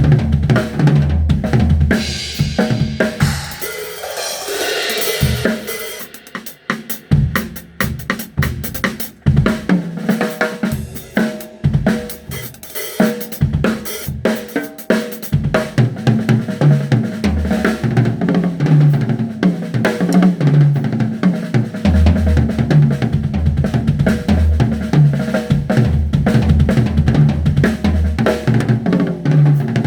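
Drum kit being played. A cymbal washes on for a couple of seconds near the start, then comes a run of fast, sharp strikes, then a steady beat with regular low bass-drum thumps.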